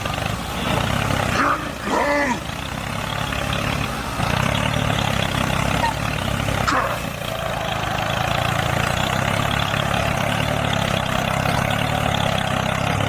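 A motor running steadily with an even low drone, with a brief rising and falling pitched sound about two seconds in and a sharp click near the middle.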